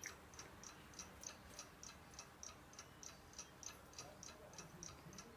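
Faint, even clock ticking, about three ticks a second.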